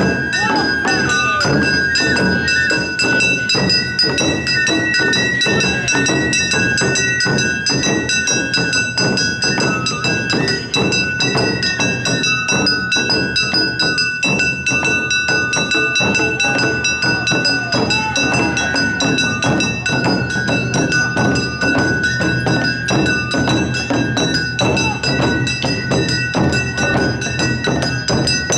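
Awa Odori narimono band playing the festival dance music. Taiko drums beat a dense steady rhythm, a kane hand gong keeps up a metallic ringing, and a shinobue bamboo flute plays a stepping melody over them.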